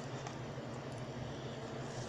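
Steady low machine hum with an even hiss, with a couple of faint light clicks near the start.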